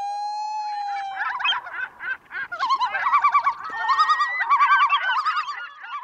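A held musical tone for about the first second, then a crowded chorus of bird calls: many overlapping, rapidly warbling, honking calls, growing louder about halfway through.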